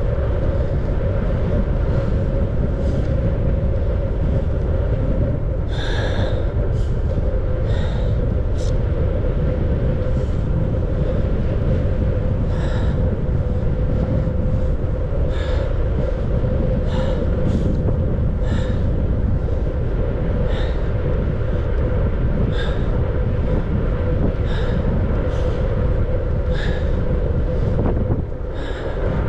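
Wind buffeting the microphone of a moving bicycle, with a steady hum underneath and short puffs about once a second. The level dips briefly near the end.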